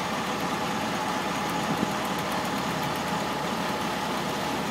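Motorboat engine running steadily, an even drone with no change in speed.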